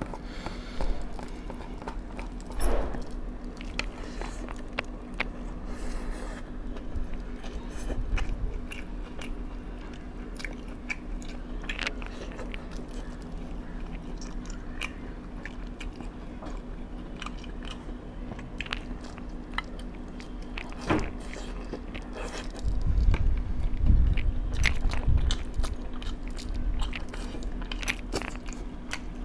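A person chewing and biting into food close to the microphone, with crunchy bites and wet mouth clicks. A steady low hum runs underneath, and there are a few low thumps about two-thirds of the way through.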